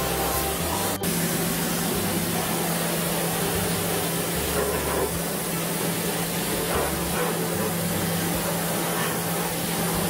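Pressure washer jet spraying water into the compressor compartment of an air conditioner outdoor unit: a steady loud hiss over a low steady hum, with a brief break about a second in.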